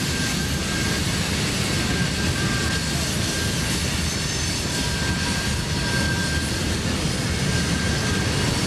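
A passing train: a steady, unbroken rumble of wheels and engines on the rails, with a faint high squeal coming and going.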